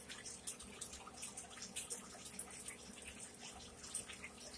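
Faint, irregular wet clicks and smacks of a mouth chewing food close to the microphone.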